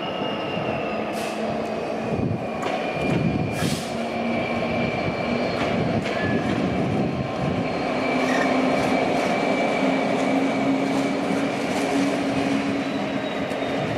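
Class 66 diesel locomotive's two-stroke V12 engine running as the locomotive moves slowly. Its steady drone rises a little in pitch about halfway through, over a thin high whine that drifts down. There are a couple of sharp clanks in the first few seconds.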